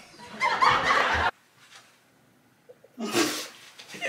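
A woman laughing in two short bursts, the first lasting about a second near the start and the second, shorter one near the end.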